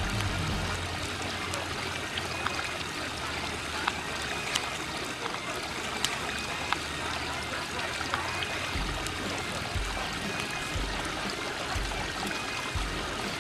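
Steady trickling, running water of a garden koi pond, with scattered sharp clicks over it and a few brief low rumbles in the second half.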